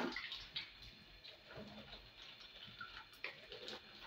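Wooden spoon stirring in a metal pot, giving scattered light knocks and scrapes.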